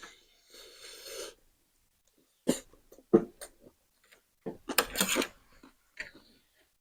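A person coughing in a series of short, sharp coughs and breathy exhales, with a tight cluster about five seconds in. It fits a reaction to the chili heat of very spicy noodles.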